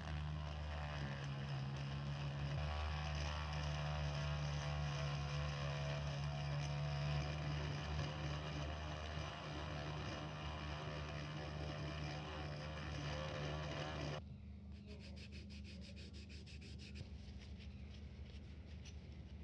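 Small cordless rotary tool running steadily with a white grinding-stone bit, abrading paint off the metal film rails of an Olympus Pen EE-3 camera body down to bare metal. The motor stops suddenly about 14 seconds in, followed by quieter, quick rubbing as a cotton wad wipes the rails.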